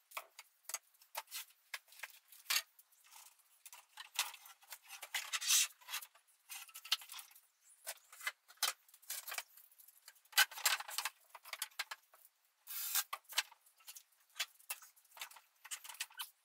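Irregular clatter, knocks and scrapes of wood and metal being handled: the wooden cart frame taken apart and the drum sander lifted and set down. The sounds come in short uneven bursts, busiest around five, eleven and thirteen seconds in.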